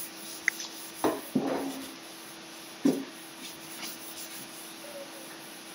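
Wooden-handled dish brush scrubbing a wet stainless steel sink with vinegar and soapy water, with a few sharp knocks against the sink in the first three seconds, then quieter scrubbing. A faint steady hum runs underneath.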